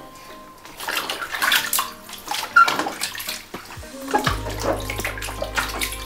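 Water splashing and sloshing in a small plastic baby bathtub as an infant is washed by hand with a cloth, in irregular splashes.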